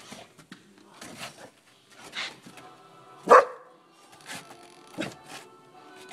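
A boxer dog gives one short, loud bark about three seconds in, with several shorter, quieter noises around it as it noses and paws at the snow.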